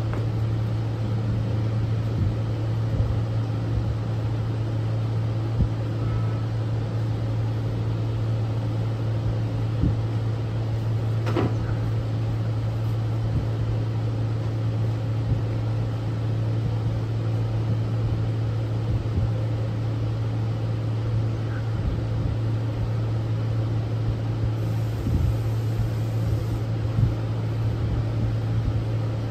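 Steady low mechanical hum at an even level, with a few faint ticks over it.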